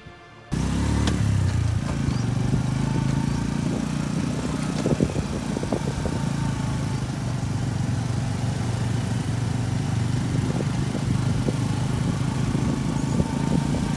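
Motorcycle engine running at a steady speed while being ridden, heard from the rider's seat. It cuts in suddenly about half a second in.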